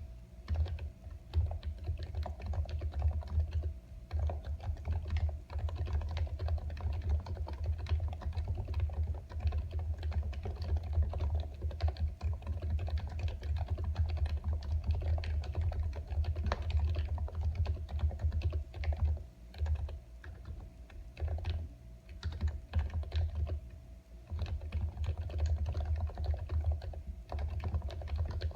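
Steady fast typing on a computer keyboard: a dense run of key clicks and low thuds, with a few short pauses.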